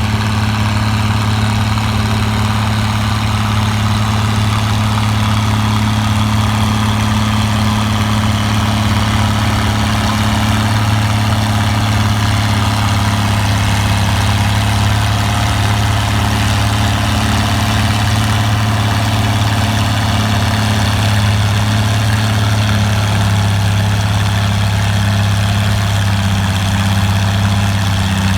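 Farm tractor engine running at a steady speed, a loud, even low hum with little change, shifting slightly in pitch near the end.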